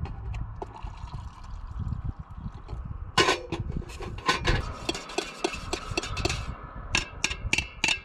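Water being poured into a kettle, with a run of sharp clicks and knocks as the kettle and camping gear are handled, four quick clicks near the end.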